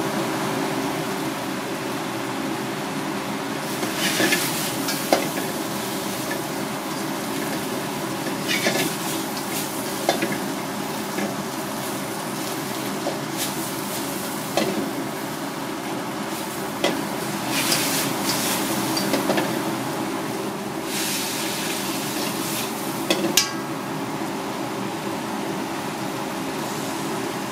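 Greens stir-frying in a wok over a gas burner: a continuous sizzle that surges every few seconds as the vegetables are tossed, with sharp taps of chopsticks against the wok and a steady low hum underneath.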